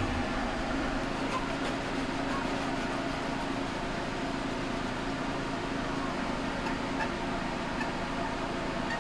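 A steady mechanical hum with a low held tone, like a fan or air-conditioning unit running.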